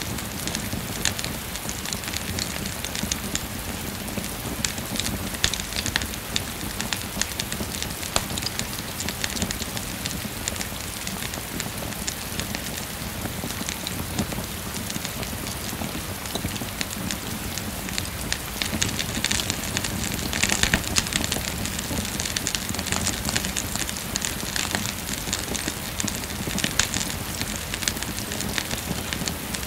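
Steady rain falling, mixed with a wood fire crackling and popping in a fireplace. The rain grows a little louder about two-thirds of the way through.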